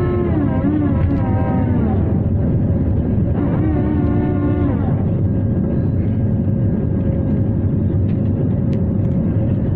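Steady, loud cabin noise inside a jet airliner climbing out after takeoff: the low rumble of the engines and the rush of air past the fuselage. A wavering pitched sound rises over it twice in the first five seconds.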